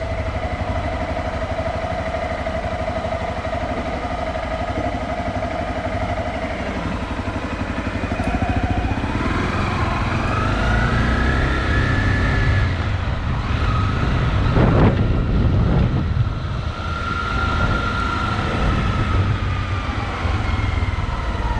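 Car engine running as the car turns around, heard from inside the car. The engine's pitch rises about halfway through and falls again near the end, with a short rush of noise in the middle.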